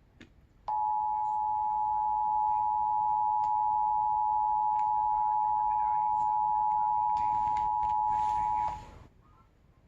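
Emergency Alert System attention signal: the two-tone alert, 853 Hz and 960 Hz sounding together, held steady for about eight seconds. It starts just under a second in and cuts off near the end, marking the start of an incoming emergency alert message.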